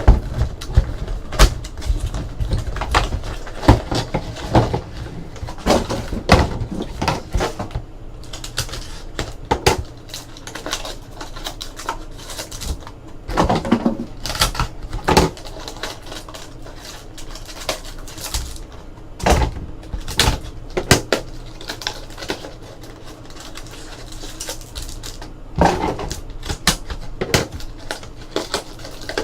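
Trading-card box being opened and its cards handled: irregular clicks, taps and rustling of cardboard and wrappers over a steady low hum.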